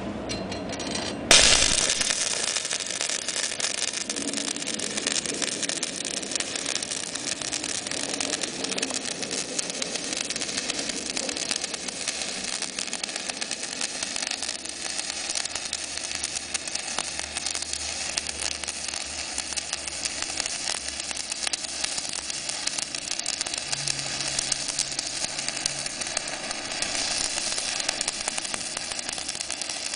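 Stick-welding arc of a 3.25 mm coated electrode, fed 200 A by a Dedra DESI200 inverter welder, well above the 125 A suited to this electrode. The arc strikes with a sharp crack about a second in, then runs on as a steady crackling hiss.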